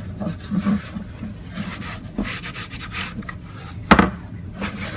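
Cloth rubbing and wiping over a tool case in short irregular strokes, spreading freshly sprayed furniture polish. A sharp knock about four seconds in.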